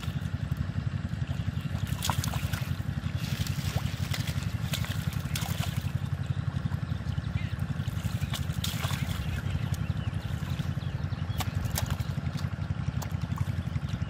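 Hands splashing and water trickling as catfish are grabbed and lifted out of shallow, muddy water, over the steady low drone of a small engine running.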